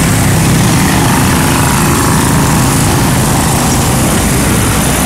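Several 6x6 amphibious ATVs racing past, their small engines running loud and steady.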